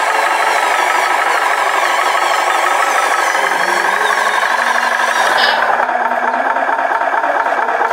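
Toy truck running with a steady engine-like drone and rattling; the higher sounds drop away about five seconds in.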